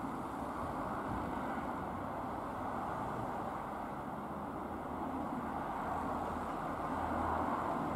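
Steady drone of a Reims Cessna F172M Skyhawk's four-cylinder Lycoming engine and propeller flying overhead at a distance, swelling slightly near the end.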